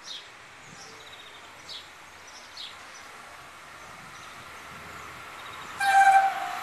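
Small birds chirping a few times; then, about six seconds in, an approaching train sounds its horn in one short, loud, steady blast, as the rail noise of the oncoming train starts to build.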